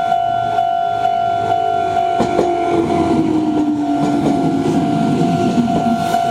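Meitetsu Nishio Line train passing over a level crossing: wheels clacking over the rail joints and a motor whine falling slowly in pitch, from about two seconds in. Under it the crossing's electronic warning bell rings steadily at about two strikes a second.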